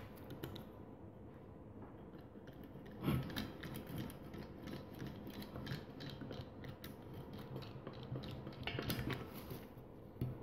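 Utility knife blade cutting and scraping through a rubber tyre valve stem seated in a rusty steel wheel rim: a run of small scrapes and crackling clicks that starts about three seconds in, louder near the start and again near the end.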